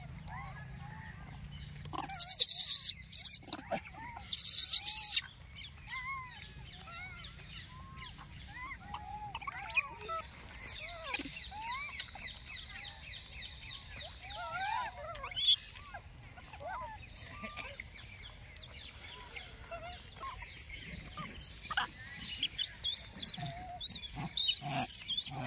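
Many short, arching animal chirps and calls throughout, with two loud bursts of hissing, crackling noise about two and four seconds in.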